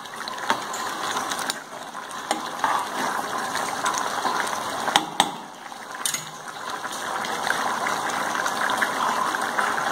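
Thick chicken masala gravy bubbling and popping at the boil in a nonstick pan, a steady crackle. A few sharp clicks come from a perforated steel ladle knocking the pan as it is stirred.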